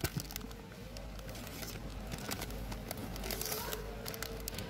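Plastic film packaging crinkling and crackling as plastic-wrapped packs are picked up and handled, a run of quick irregular crackles that bunch up near the start and again a little after the middle.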